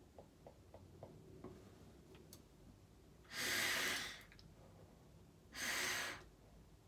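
Two loud hissing nasal inhalations drawn through a pair of vape mouthpieces held to the nostrils. The first comes about three seconds in and lasts about a second; the second is shorter and comes near the end.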